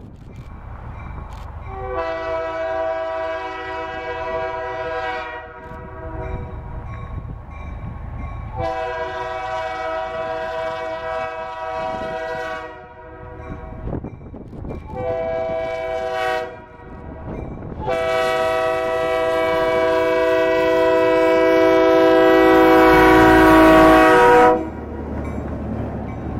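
Diesel locomotive's multi-note air horn blowing the grade-crossing signal: two long blasts, a short one, then a final long blast that grows louder as the train draws near and cuts off sharply. The engine and wheels rumble low underneath.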